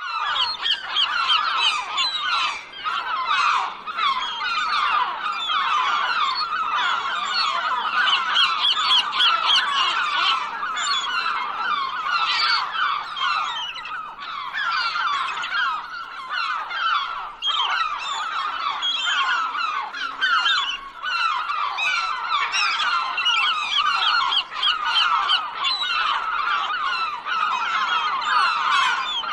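A large flock of gulls calling all at once, many short overlapping cries blending into a continuous clamour.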